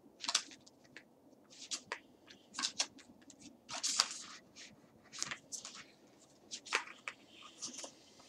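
A deck of oracle cards being shuffled and handled, a string of short, irregular rustling and flicking strokes.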